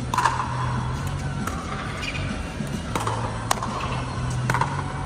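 Pickleball rally: sharp pops of the plastic ball striking hard paddles, about five hits spaced irregularly, each ringing briefly in the dome. A steady low hum runs underneath.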